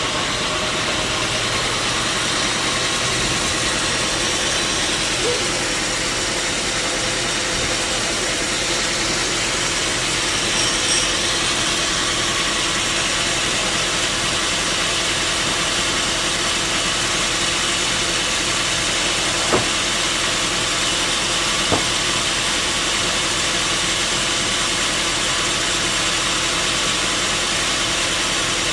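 Sawmill machinery running steadily with a loud, even mechanical noise, and two short sharp knocks a couple of seconds apart about two-thirds of the way through.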